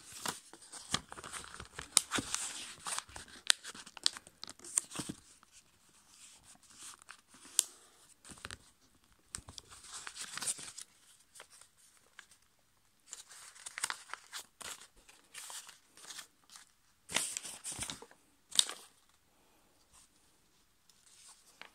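A5 copy paper rustling and crinkling as it is folded and pressed into creases by hand, in uneven bursts with short sharp clicks and a few brief pauses.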